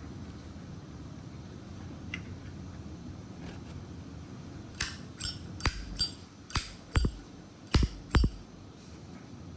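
Zippo lighter being handled: about eight sharp metallic clicks and clinks in the second half, some in close pairs, as the lighter's metal parts are worked back together after the flint is fitted.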